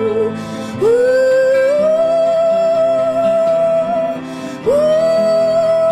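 Background pop-rock song: a singer holds long wordless notes over a steady band backing, swooping up into a new note about a second in and again near the end.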